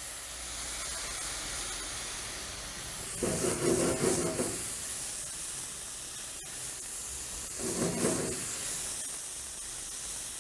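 Broth poured into a hot stainless-steel sauté pan of corn kernels, hissing and sizzling steadily as it hits the hot pan. The sound swells briefly twice, about three and eight seconds in.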